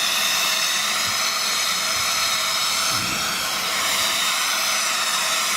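Steam locomotive 60009 Union of South Africa, an LNER A4 Pacific, letting off steam in a loud, steady hiss.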